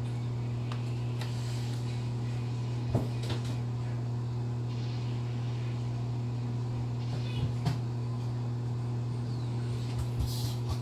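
Steady low electrical hum, with a few faint taps and clicks now and then.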